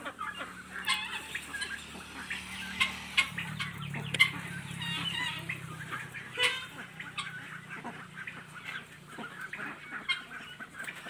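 A flock of country chickens clucking, with many short calls overlapping throughout.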